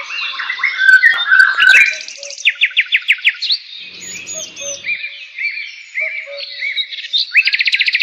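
Several songbirds singing at once, overlapping whistled chirps and slurred notes. About two and a half seconds in comes a quick run of repeated notes, and near the end a faster trill.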